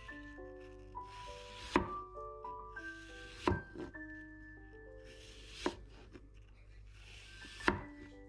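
Kitchen knife slicing a peeled apple on a wooden cutting board, the blade knocking on the board four times about two seconds apart. Light melodic background music plays throughout.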